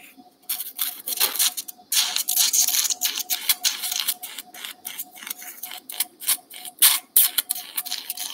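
Surgical suction tip drawing blood and fluid from an open stifle joint: irregular hissing and sputtering with sharp clicks, starting about half a second in.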